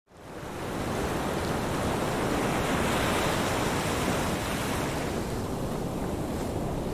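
Ocean surf breaking on a beach: a steady rush of waves that fades in over the first second.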